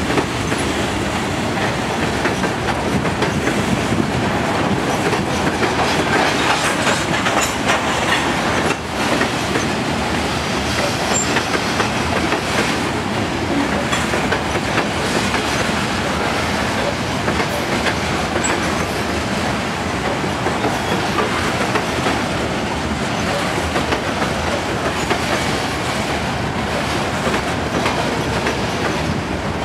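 Freight train covered hopper cars rolling past, their steel wheels on the rails making a steady, loud rush of noise with scattered clicks, with a brief dip about nine seconds in.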